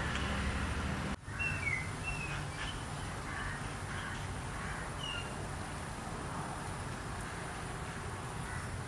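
Outdoor ambience: a steady low rumble and hiss, with a bird giving a few short chirps in the first half. The sound cuts out for a moment about a second in.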